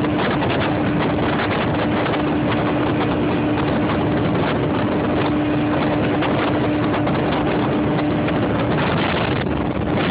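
Motorboat engine running steadily under way, a constant drone over the rush of noise, easing slightly near the end.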